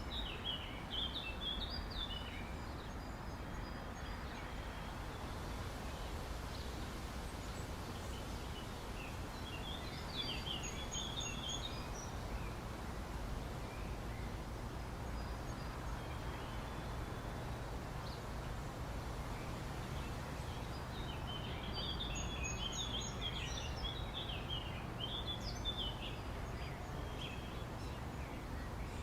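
Birds chirping in three short bouts, near the start, about a third of the way in and for a few seconds late on, over a steady low background rumble.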